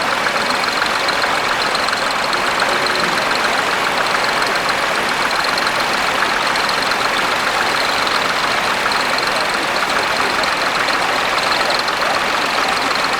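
Tractor engine running steadily at a constant speed, with rapid, even firing and a steady high-pitched whine over it.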